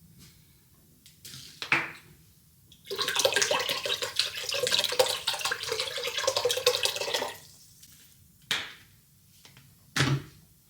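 Soy sauce poured into a pot of water and whole spices: a steady pouring stream lasting about four seconds, starting about three seconds in. A few short knocks come before and after it.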